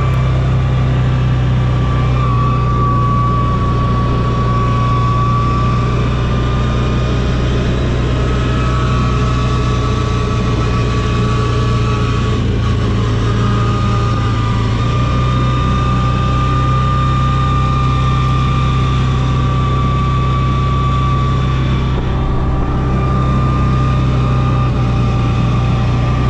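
A motor vehicle's engine running steadily, a continuous low drone with a steady high whine over it.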